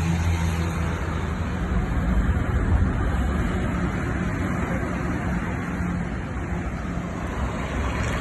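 Heavy truck engine running steadily, its low hum fading after about a second under a rushing noise like wind on the microphone.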